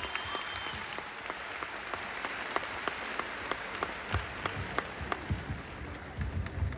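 Concert hall audience applauding, a dense patter of many hands clapping, with a few low thuds in the second half.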